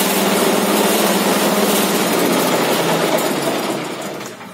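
Small engine driving a coffee husking machine, running steadily. Near the end it is shut off, its pitch dropping and the sound fading as it runs down.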